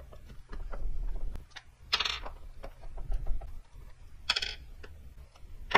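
Screwdriver work on a plastic console lid: scattered small clicks and clinks of the tool and loose screws. Two short scraping rasps come about two seconds in and again past four seconds.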